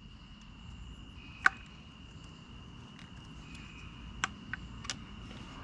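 A few sharp metallic clicks of a screwdriver working against a cast-iron scrap piece as it is pried at, the sharpest about a second and a half in; the screwdriver is not breaking it loose. A steady insect trill runs behind.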